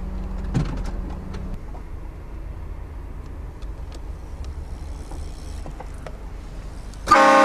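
Low steady rumble of a vehicle driving, heard from inside the cabin; near the end a train horn mounted on the vehicle blasts suddenly and loudly, several tones sounding at once.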